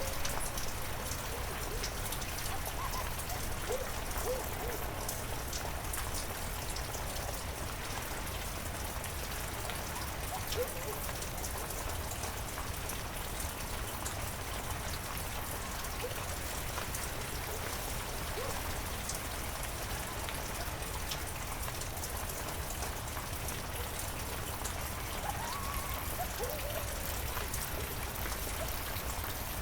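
Heavy rain falling steadily, a dense even patter of drops, with a few faint brief gliding notes now and then.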